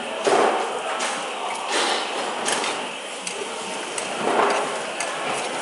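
Egg being stirred in a stainless-steel frying pan, the utensil scraping and lightly clinking against the pan, a few short knocks over a steady hiss.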